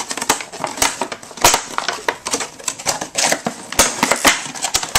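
Packaging crinkling and rustling in rapid, irregular crackles as oversized commander cards are pulled out by hand.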